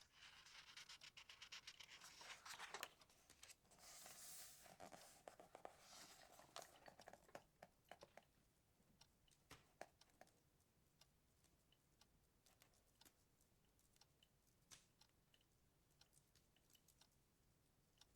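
Soft rustling of paper as book pages are handled and turned, busiest over the first few seconds, then only faint scattered ticks.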